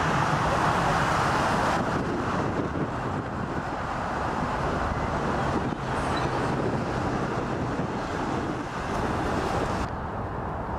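Steady rushing jet engine noise of a twin-engine airliner landing and rolling out on the runway, mixed with wind on the microphone. The sound changes abruptly about two, six and ten seconds in.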